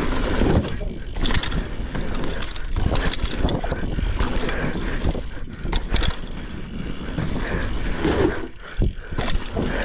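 Dirt jump bike ridden over packed dirt: tyres rumbling, the rear hub ratcheting as it coasts, and sharp knocks and rattles from the bike, with a steady rush of riding noise on the handlebar-mounted camera.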